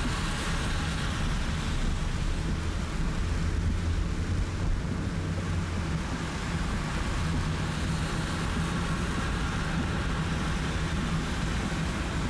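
Car driving in heavy rain: a steady low engine and road drone under an even hiss of rain and wet tyres.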